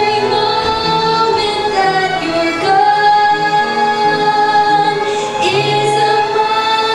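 A female voice singing a song, holding long sustained notes over instrumental accompaniment with a lower bass line.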